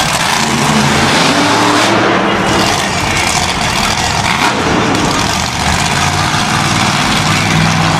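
Grinder monster truck's supercharged V8 engine running hard, loud and continuous, its pitch shifting as the revs change.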